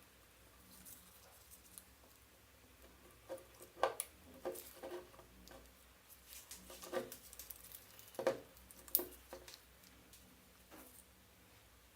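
Irregular light knocks, clicks and scrapes of small parts being handled during a blender repair, about a dozen scattered strikes with the sharpest about 4, 7, 8 and 9 seconds in.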